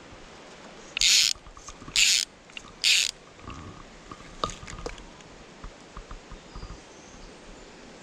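Fly reel's click ratchet buzzing three times, about a second apart, as line is stripped off by hand, each pull lasting about a third of a second. A few faint ticks and handling sounds follow.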